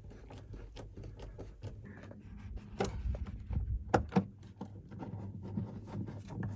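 Small metal clicks and clinks of a steel D-ring tie-down being screwed into the camper floor and its loop handled, with a few sharper clinks about three and four seconds in.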